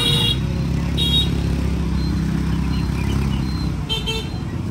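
Motor scooters running past at close quarters with a steady low engine rumble, and three short, high-pitched scooter horn beeps: one at the start, one about a second in and one near the end.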